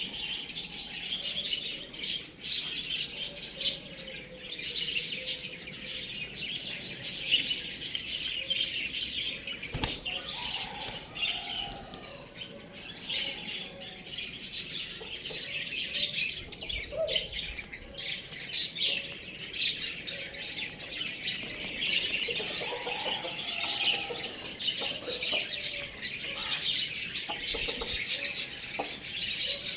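Many small birds chirping continuously in a dense, overlapping chatter, with occasional lower calls mixed in.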